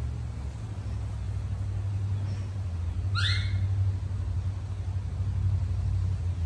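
A steady low rumble throughout, with one short, rising, whistle-like call about three seconds in.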